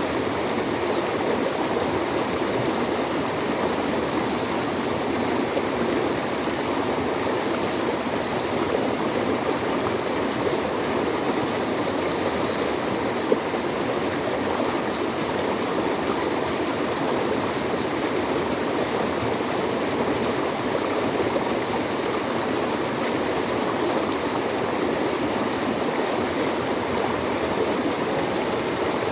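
Steady rush of flowing water, an even noise that does not change, with a faint short high chirp every few seconds.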